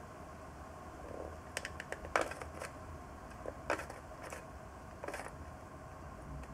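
Light, irregular clicks and taps, about half a dozen, the sharpest about two seconds in, from a hot glue gun being squeezed and handled against a paper tube on twisted wire.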